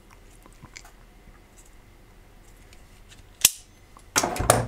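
Steel locking pliers clicking against a laptop's bent copper heatsink as it is bent back straight. There is a sharp snap about three and a half seconds in as the pliers let go, then a short metallic clatter near the end.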